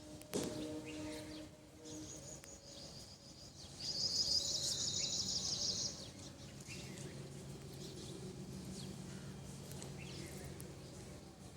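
A small bird's rapid, high-pitched trill of quickly repeated chirps, loudest from about four to six seconds in, over outdoor background noise. A steady low hum takes over after it.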